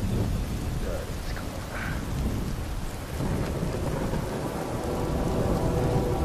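Rushing water of a swollen, muddy creek running high with snowmelt: a steady rush of noise with a heavy, uneven low rumble.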